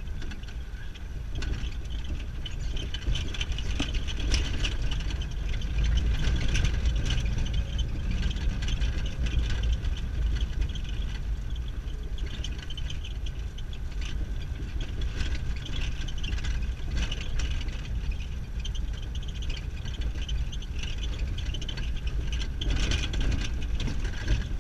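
Vehicle cabin noise while driving on an unpaved gravel road: a steady low engine and road rumble with tyre noise, and frequent small clicks and knocks throughout as the vehicle jolts over the stones.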